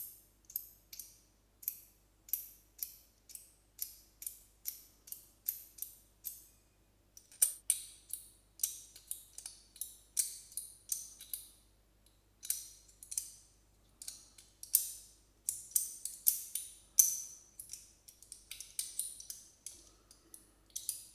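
Magnetic sliding fidget toy being fidgeted: its magnetised pieces snap together in sharp clicks, about two or three a second at first, then in faster runs broken by brief pauses.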